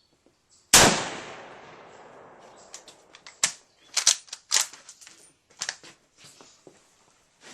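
A single shot from a Carcano 91/41 rifle in 6.5x52mm, just under a second in, its report fading away over about two seconds. It is followed by a run of sharp clicks and knocks.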